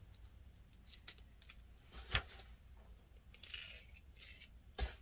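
Faint rustling and small clicks of merchandise packaging being handled and opened by hand, with a sharper knock about two seconds in and another near the end.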